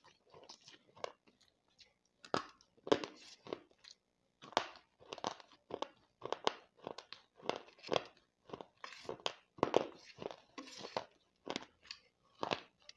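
Baked clay-pot crumbles crunching between the teeth as they are chewed: a run of short crisp crunches, about two a second, with a couple of brief pauses.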